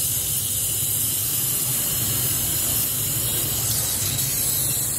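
Brazing torch flame hissing steadily, with a steady low rumble underneath, as it heats a copper pipe joint on a refrigerator compressor.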